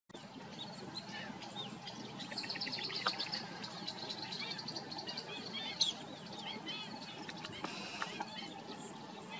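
Wild birds chirping and calling, many short high chirps overlapping, with a quick run of repeated high notes about two and a half seconds in, over a steady low background noise. A single sharp click comes near six seconds in.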